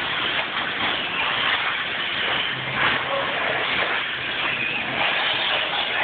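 Small electric RC cars, among them a brushed-motor Helion Animus 18SC, running on a clay track: a high motor and gear whine that rises and falls with the throttle, over a steady noise of the cars moving.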